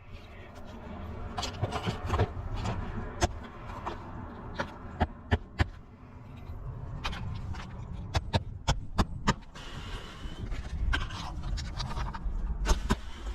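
Hand work on a roof vent and its shingles: irregular sharp taps and clicks, some in quick clusters, over a steady low rumble.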